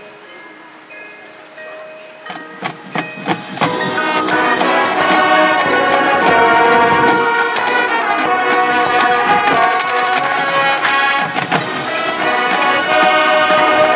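High school marching band playing: a few soft held notes, then a string of drum hits about two seconds in that builds into the full band, brass and percussion playing loudly from about four seconds on.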